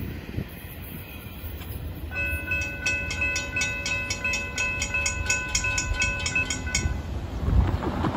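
Railroad grade-crossing bell ringing, with rapid metallic strikes about four a second, while the crossing gates rise after a train has passed. It starts about two seconds in and stops about seven seconds in, and a road vehicle rumbles over the crossing near the end.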